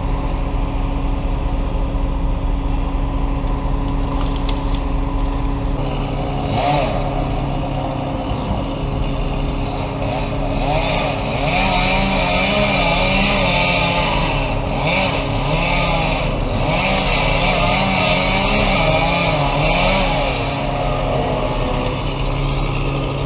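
Stihl chainsaw cutting through a large red oak trunk, its pitch wavering up and down under load from about six seconds in until near the end, over the steady running of the crane's engine. This is the final cut that frees the roughly 5,500-pound piece for the crane.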